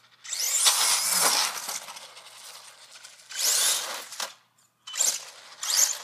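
Traxxas E-Revo RC truck's electric motors and drivetrain whining in short throttle bursts, pitch rising and falling with speed, along with tyre noise on the wet road. The truck runs on batteries joined by a series connector. It drops to near silence briefly about four and a half seconds in.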